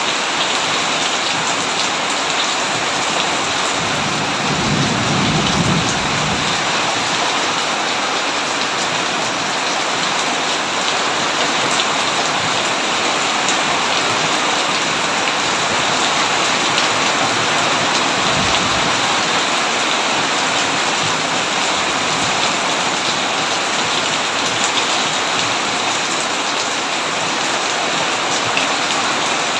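Heavy rain pouring steadily on a tin roof, with low rumbles of thunder about four seconds in and again just past the middle.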